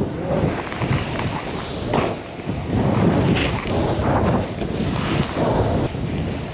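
Snowboard sliding and turning over firm, wind-packed snow, with wind rushing over the camera's microphone. The noise swells and eases about once a second.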